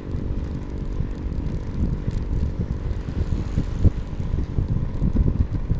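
Wind buffeting the microphone of a cyclist riding uphill on a road, an uneven low noise with no other clear event.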